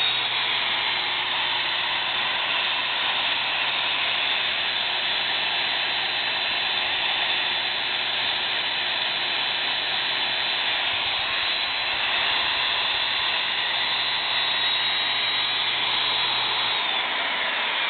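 Hougen HMD925 magnetic drill press motor running steadily with no load: an even whir with a high whine and a low hum. Near the end it is switched off, and the whine falls as the motor winds down.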